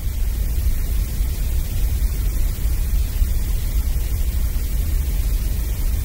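Gray noise: a steady synthetic hiss, heavy in the deep bass and bright in the treble, with a hollow in the upper middle.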